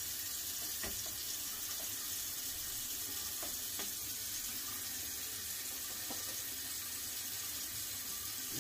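Bathroom sink tap running steadily, with a few faint small clicks and knocks from handling things at the sink.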